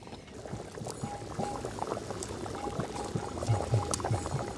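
Thick chicken-and-ash-gourd curry bubbling and popping in a cast-iron kadai, starting about a second in. The masala is being cooked down (kosha) and is nearly done.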